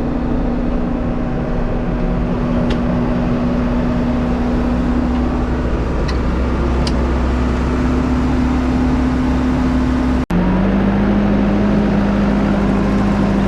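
Backhoe loader's diesel engine running steadily with a constant hum. About ten seconds in the sound cuts off for an instant and resumes at a slightly lower steady note, with a few faint ticks earlier on.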